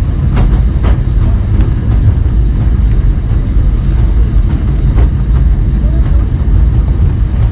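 Great Orme Tramway car, a cable-hauled tram, running along its rails: a steady, heavy rumble with a few sharp clicks and knocks from the track.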